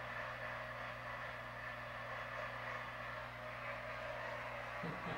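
Steady static hiss with a low electrical hum under it.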